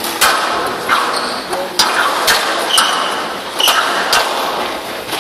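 Squash rally on a glass court: a string of sharp ball strikes off rackets and walls every half second to a second, ringing in a large hall. Two short high shoe squeaks on the court floor come about halfway through.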